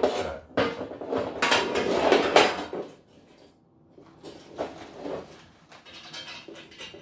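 Metal frame sections of a Pet Planet rat and ferret cage clattering and knocking together as they are handled and lined up, loudest in the first three seconds. After that, lighter metal clinks and scraping as the joint is screwed together by hand.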